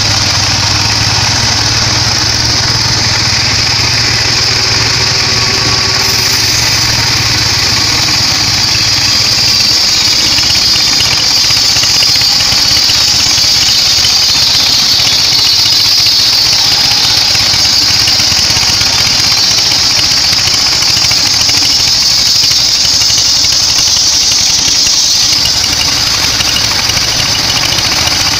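Band sawmill running and sawing weru timber: a steady high whine over a low motor hum. The hum drops back from about nine seconds in to near the end while the blade sound changes, as if the blade is in the cut, then the hum returns.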